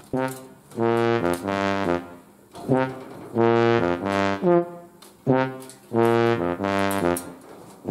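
Music: a slow melody of held notes stepping up and down, played in three phrases with short gaps between them, with a brass-like tone.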